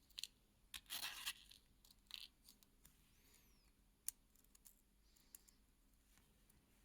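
Faint scratching and light clicks of small metal watch parts being handled while a mechanical watch movement is taken apart. There is a short scratchy rustle about a second in and a sharp tick near the middle.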